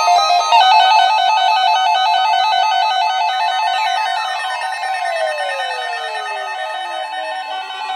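Several electronic alarm devices, among them an ESP2100, sounding together in response to a NOAA Weather Radio test alert: fast-alternating warbling tones, with one tone sliding steadily down in pitch from about halfway through.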